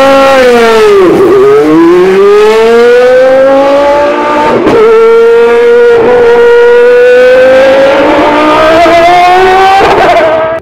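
Peugeot V10 of a three-seat Formula 1 car revving hard as the car pulls away. The engine note is very loud, climbing in pitch and dropping back sharply several times, as at gear changes.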